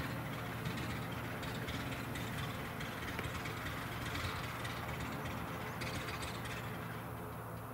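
Cessna 182P Skylane's six-cylinder piston engine and propeller droning steadily as the aircraft climbs away after takeoff, fading slowly toward the end.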